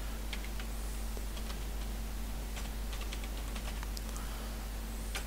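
Computer keyboard keystrokes as a short word is typed: scattered clicks, a few at a time, over a steady low electrical hum.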